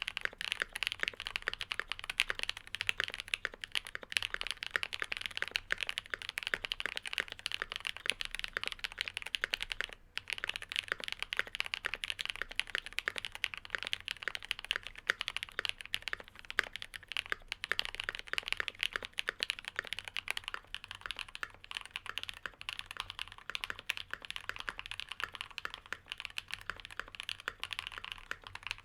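Steady, fast typing on an Ikki68 Aurora gasket-mount mechanical keyboard with lubed linear switches (Cherry MX Black housings with Kailh black stems) under GMK keycaps, giving a dense stream of key clacks. There is a brief pause about ten seconds in.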